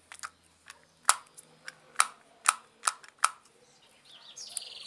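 Upper and lower teeth knocking together about six times in sharp, irregular clicks, with no mouth guard between them, the tooth-on-tooth contact that grinding and clenching cause. A bird chirps briefly near the end.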